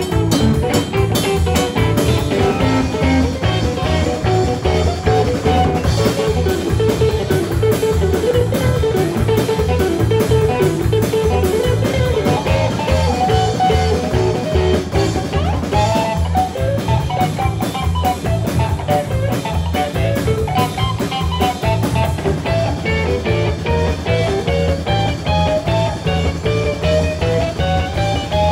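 Live blues-rock band playing an instrumental stretch: electric guitar picking out runs of lead notes over bass guitar and a drum kit keeping a steady beat.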